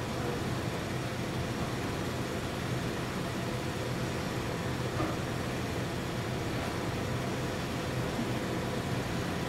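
Steady mechanical hum with a constant rushing background noise, and one faint click about five seconds in.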